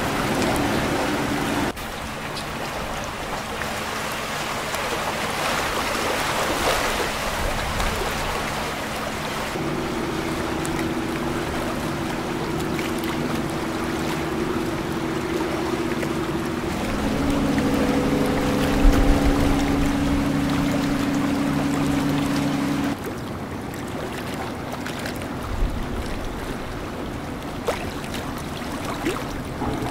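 Boat engines running over the wash of water against hulls. From about ten seconds in, a steady droning engine note comes in, drops to a lower pitch after about seven seconds, and cuts off abruptly some six seconds later.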